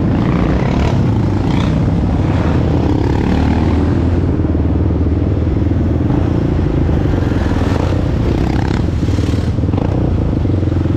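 Off-road vehicle engine running steadily under way, with an even drone that holds its pitch.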